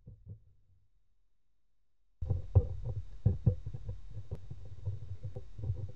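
Faint knocks and clicks of measuring probes being set down and shifted on a laptop motherboard's pads, checking for a short where a capacitor was removed, over a low steady hum. Before the hum starts there is a moment of total silence.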